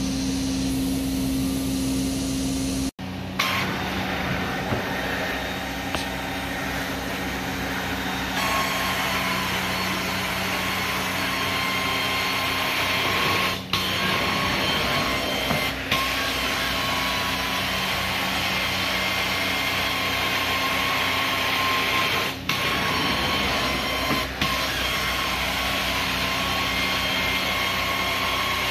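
Carpet-cleaning extraction wand pulling steady vacuum suction over carpet, a loud continuous rushing hiss with a thin whine. It cuts out briefly about three seconds in, changes tone a few seconds later, and dips briefly a few more times, as the wand is lifted between passes.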